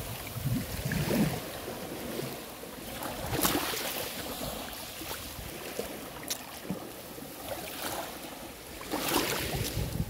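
Small sea waves lapping and washing onto a pebbly sand shore, swelling and ebbing every few seconds and strongest about three and a half seconds in and near the end. Some wind rumbles on the microphone.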